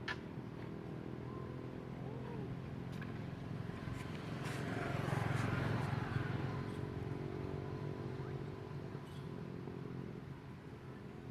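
A motor vehicle passing by: its engine sound rises to its loudest about halfway through, then fades away.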